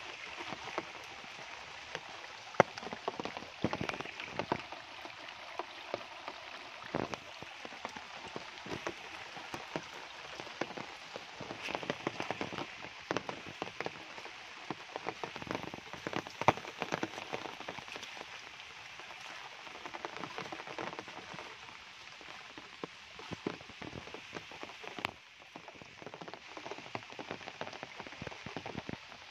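Steady rain falling on jungle leaves and a muddy path, with many close single drops ticking sharply throughout. It eases a little near the end.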